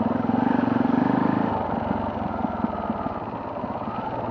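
Off-road motorcycle engine running under way, pulling under throttle for the first second and a half and then easing off.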